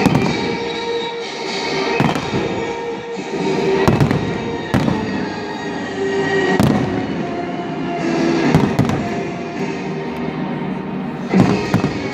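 Aerial fireworks shells bursting overhead: a string of sharp booms at irregular intervals, about ten in all, with a close pair near the end.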